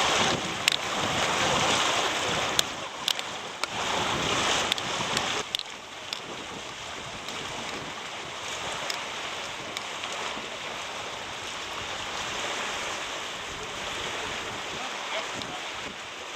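Outdoor water and wind noise at the shoreline, with a few sharp clicks; it surges louder twice in the first five seconds or so, then settles to a steadier, quieter wash.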